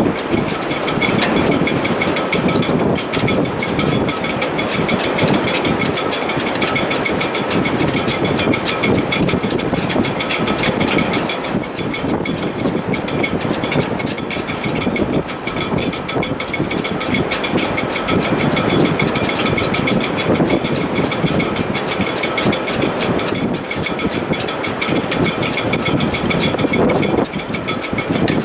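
Sailboat shrouds (rigging stays) singing in strong wind: several steady high whistling tones with a rapid flutter, over continuous rushing wind noise.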